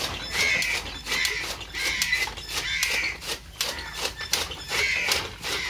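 Hand-cranked chaff cutter chopping green fodder: the flywheel blades make a quick run of sharp chops, about three a second. A short harsh squawking sound repeats about once a second over it.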